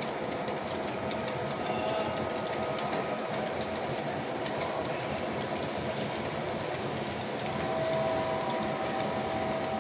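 Model railroad freight cars rolling past on the layout track: a steady rolling rumble of small wheels on rail with fine, rapid clicking, and a faint steady whine underneath.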